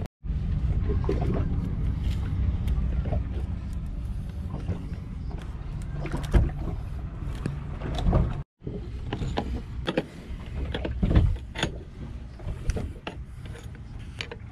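A steady low rumble with scattered clicks and knocks over it; the sound cuts out completely for a moment twice, near the start and a little past halfway.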